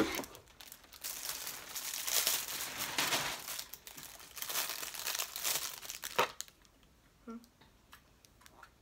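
Clear plastic packaging crinkling as a small folding brush-mirror is unwrapped by hand, a busy crackle for about six seconds that ends in one sharp crack, followed by a few faint clicks.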